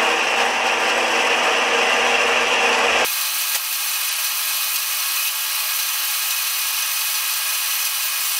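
Klutch metal-cutting bandsaw cutting through a flat steel strip, the blade giving a steady rasping hiss. About three seconds in, the lower part of the sound drops away and a thinner, higher hiss carries on.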